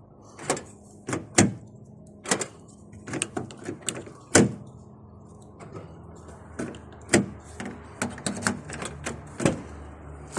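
A string of irregular mechanical clicks and clunks from the Holden VY Commodore's door locks and keys being worked, the loudest a little over four seconds in, with a faint steady hum under the second half.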